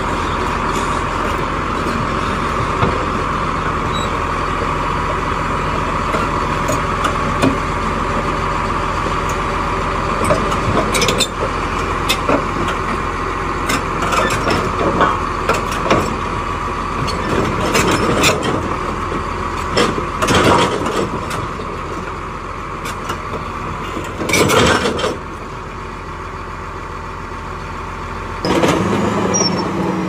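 Caterpillar D8R crawler bulldozer's diesel engine running while its steel tracks clank and clatter as it crawls off a lowboy trailer. The clanking is loudest in the middle, and a steadier, lower engine note comes in near the end.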